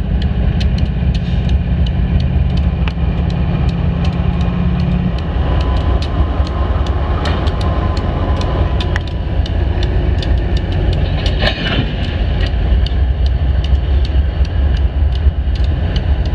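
Diesel freight locomotives rolling past, their engines giving a heavy, steady rumble, with frequent sharp clicks and clanks from the wheels and running gear. A steady engine hum drops away about five seconds in.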